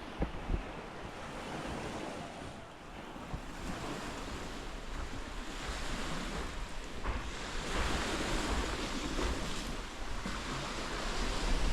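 Sea waves breaking and washing up the sand, the surf noise swelling louder in the second half, with wind rumbling on the microphone.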